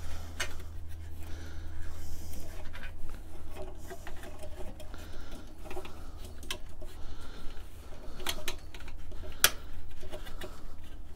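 Scattered sharp metal clicks and light clanks from the ash pan latches under a Char-Griller Akorn kamado grill being fastened, the loudest click near the end. A steady low rumble runs underneath.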